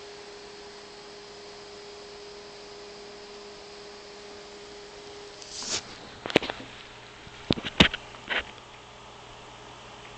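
A steady electrical hum from a stepper-motor control board and its cooling fan, whose tone cuts out a little past halfway. This is followed by a swish and a handful of sharp clicks from handling and laptop keys being pressed.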